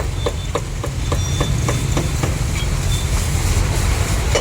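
Cleaver chopping roast meat on a block in quick, regular strokes, about four a second, over a steady low rumble.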